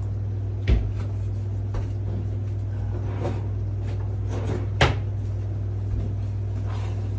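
Kitchen cupboard door and drawers opening and shutting: two sharp knocks, about a second in and near five seconds, with lighter clatter between, over a steady low hum.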